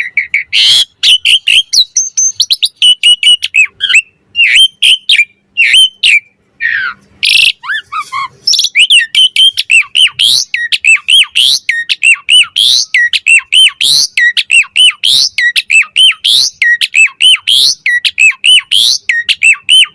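Asian pied starling (jalak suren) singing its pumping (mompa) song. At first it gives varied whistles and clicks, then from about eight seconds in a fast, even run of repeated rising whistles, about two a second.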